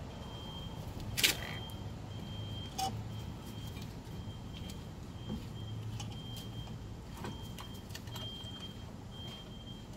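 Metal tool clicking and scraping against a Kia Sedona front brake caliper while pushing the caliper piston back, with one sharp metallic click about a second in and a few lighter clinks after it. A faint high tone repeats in short dashes over a low steady hum.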